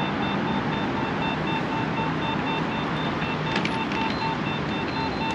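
Steady city street traffic noise, with a fast, even electronic beeping throughout and a couple of light clicks about three and a half seconds in.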